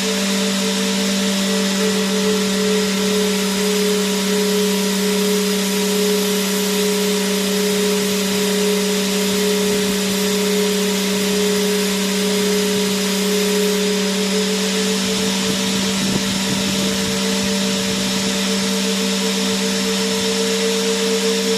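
Vacuum cleaner motor running continuously: a steady motor whine over a constant rush of airflow hiss. The whine edges slightly higher in pitch about two-thirds of the way through.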